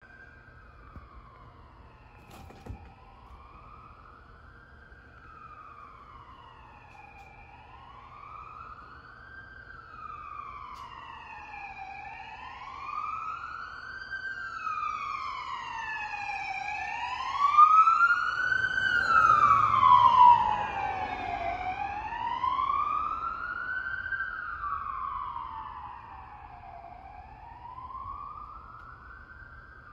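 Police SUV siren on a slow wail, rising and falling every few seconds, growing louder as the sheriff's Explorer approaches. It is loudest a little past halfway, with the low rumble of the passing vehicle, then fades into the distance.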